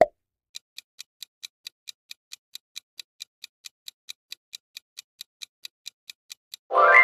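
Countdown timer sound effect: a short click, then steady clock-like ticks about four and a half a second, ending near the end in a loud ringing chime as the time runs out.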